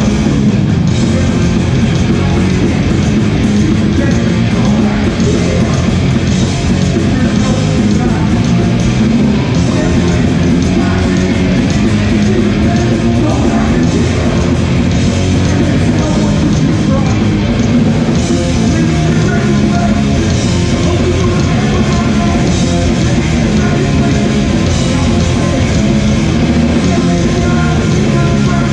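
Hardcore punk band playing live, loud and without a break: distorted guitars, bass and drums.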